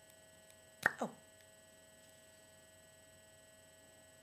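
Faint steady electrical hum with a few fixed whining tones. About a second in come two short sharp sounds close together, each dropping quickly in pitch.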